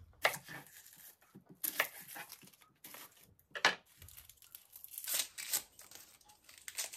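Dry, papery red onion skin being torn and peeled off by hand, in short irregular crackling rustles.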